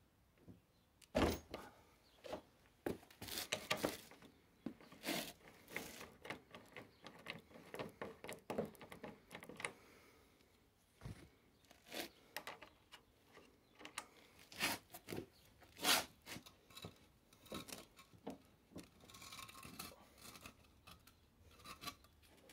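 Handling noise: irregular clicks, knocks and scrapes close to the microphone, with the loudest knocks about a second in and again about three-quarters of the way through.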